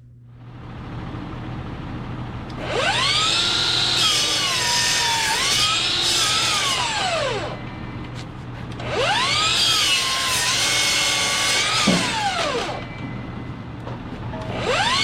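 Band sawmill cutting boards from a log: a whining blade noise that rises as each cut starts, holds for several seconds and falls away as it ends, about three times, over a steady machine hum.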